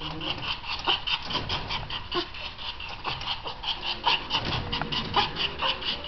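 Chihuahua barking in a rapid, unbroken string of high yaps: agitated, territorial barking of the kind set off by the doorbell.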